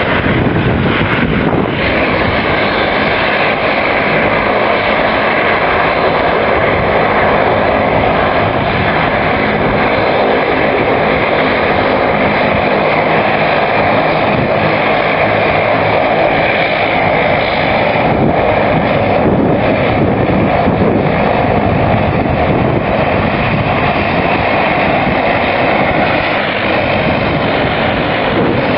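Twin turboprop engines of a Dash 8 airliner running steadily at taxi power, a constant propeller and engine drone.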